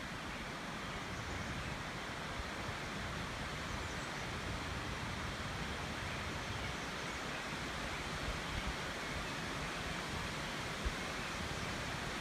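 Steady rushing outdoor noise with uneven low rumbling from wind on the microphone, and one brief knock near the end.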